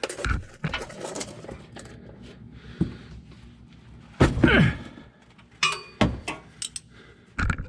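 Scattered metal clinks and knocks of hand tools, a wrench and socket, at work on the truck's oil drain, with a louder clatter about four seconds in.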